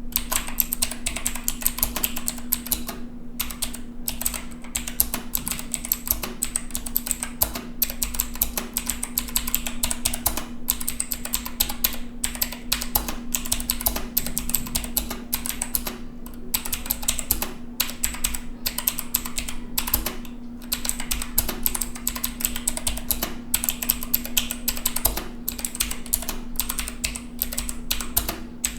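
Redgear Shadow Blade MK853 mechanical keyboard with blue switches being typed on fast and continuously: a dense clatter of clicky keystrokes, broken by a few brief pauses.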